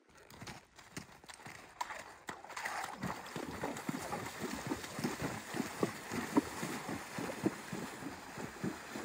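A horse's hooves splashing through shallow creek water at a steady gait: a rhythmic run of splashy hoofbeats that grows louder about two to three seconds in.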